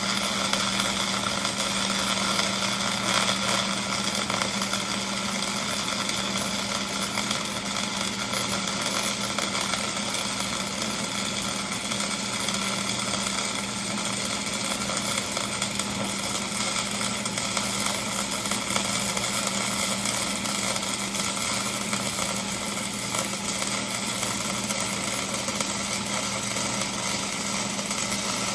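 Flux-core wire welder running a long continuous bead, a steady dense crackle with an even low hum underneath.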